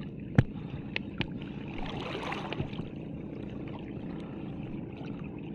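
Water lapping and trickling at the shoreline, with a sharp click about half a second in, two smaller clicks soon after and a brief splashy rustle around the middle.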